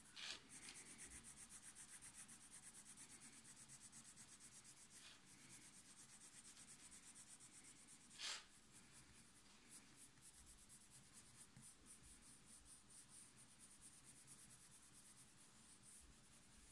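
Faint scratching of a brown colored pencil shading back and forth on sketchbook paper, in quick, even strokes. A brief, louder rustle comes about eight seconds in.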